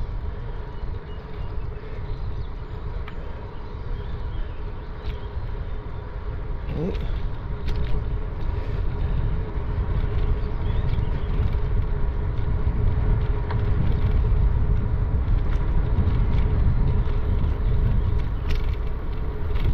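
Rumble of wind and motion on the microphone of a camera carried on a run along a lakeshore trail, with a faint steady hum, a few light knocks, and a short rising whine about seven seconds in.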